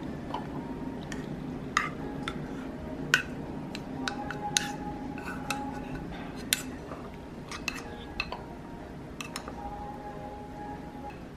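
Kitchen utensils clinking and tapping against dishes: about a dozen irregular sharp clicks, some followed by a short ring.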